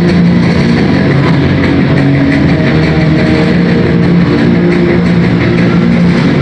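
Loud arena rock music over the PA, mixed with a monster truck's engine running on the dirt track; the mix is dense and constant throughout.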